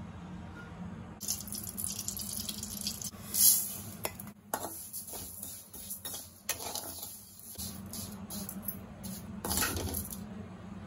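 A perforated metal skimmer ladle scraping and tossing vermicelli in a metal kadai while it roasts: repeated scrapes, clinks and rustling of the strands. The stirring starts about a second in, has its loudest clatter about three and a half seconds in, and stops shortly before the end.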